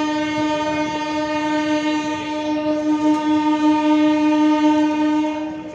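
Locomotive air horn sounding one long, steady note that cuts off near the end: the departure signal as the train pulls out of the station.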